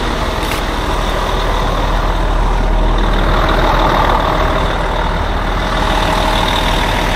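Heavy truck's diesel engine running steadily, getting a little louder about three to five seconds in.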